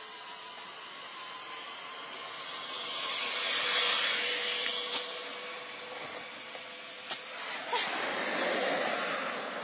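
Something passing by: a hissing rush that swells to a peak about four seconds in and fades, with a steady faint whine under it, and a smaller swell near the end.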